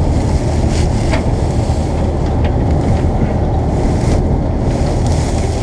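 Bizon Z040 combine harvester's diesel engine running steadily, with straw rustling as hands pull a blockage of lodged crop out of the header's feeder chain.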